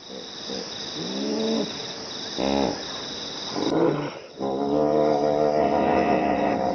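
Hippopotamus calling: several short calls that rise and fall in pitch, a quick pulsed call, then a long held call from about four and a half seconds in. A steady high hiss runs behind the first calls and stops partway through.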